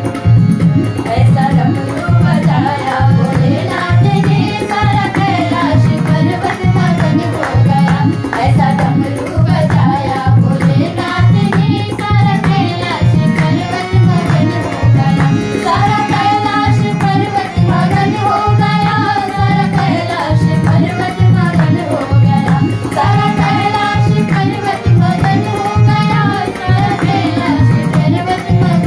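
Women singing a Hindi Shiv bhajan together to a harmonium, over a steady drum-like beat and hand clapping.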